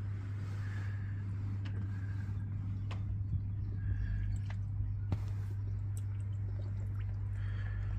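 Water faintly gurgling and dripping around a flooding Lego boat as it sinks, with a few small sharp clicks, over a steady low hum.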